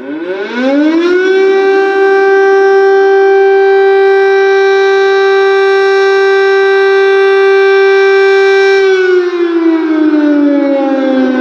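Air-raid siren sounding an air-attack warning: its pitch rises over about the first second and a half, holds as one steady, loud tone for about seven seconds, then begins to fall near the end.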